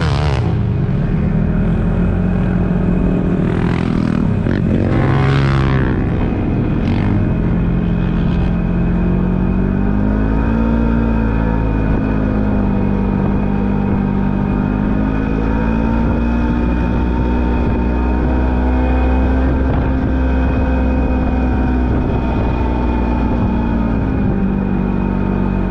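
Polaris General XP4 side-by-side's twin-cylinder engine and drivetrain running steadily while driving on a dirt trail, its pitch rising and falling gently with throttle and speed. There are a few brief rushes of noise in the first six seconds.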